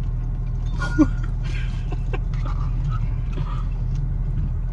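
Steady low engine rumble, with a brief sharp cry about a second in and a few faint clicks.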